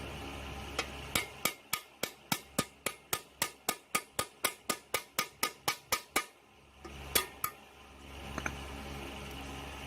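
Hammer blows on metal in a fast, even run of about twenty strikes, about four a second, then two more strikes after a short pause. A steady low hum sits underneath.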